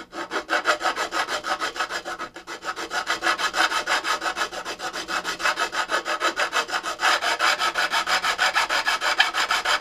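A fine file being worked back and forth along the edge of a guitar fingerboard in rapid, even scraping strokes, cutting the fret ends down flush with the wood. It is the first stage of a fret dressing, done just after the frets were nipped off. The strokes get a little louder about seven seconds in.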